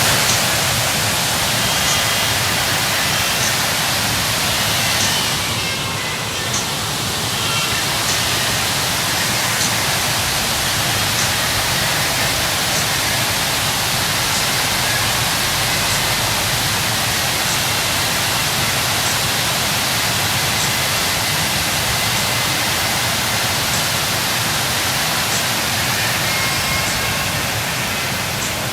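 Steady rushing hiss of snowstorm wind, even and unbroken, with faint small ticks now and then.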